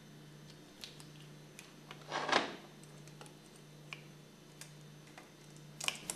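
Light metal clicks and a short scrape about two seconds in, as a retaining ring is worked into its groove on a pump crankshaft, with a cluster of clicks near the end.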